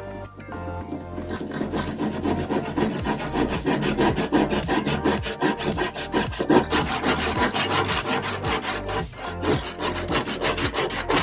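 A hand tool scraping back and forth on wood in quick, even strokes, several a second, starting about a second in.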